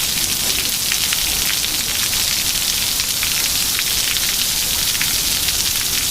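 Heavy rain pouring down with hail falling in it, the hailstones getting larger: a dense steady hiss dotted with many small sharp ticks of stones striking.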